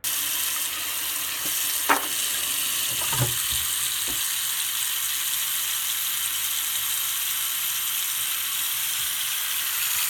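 A loud, steady hiss like static or frying, with a few faint knocks in the first half.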